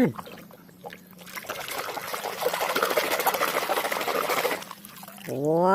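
Water pouring and splashing for about three seconds over a muddy toy as it is rinsed clean.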